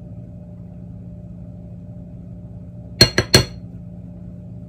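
Metal spoon tapped three times in quick succession against the rim of a stainless steel mixing bowl, ringing brightly, to knock the last of the powder off into the flour. A faint steady low hum sits underneath.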